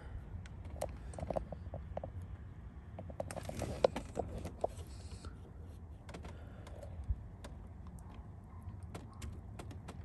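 Small plastic clicks and rattles of a Chevrolet Impala/Caprice turn signal lever being pressed and worked into its socket in the steering column, with one sharper click a little under four seconds in. A low steady hum runs underneath.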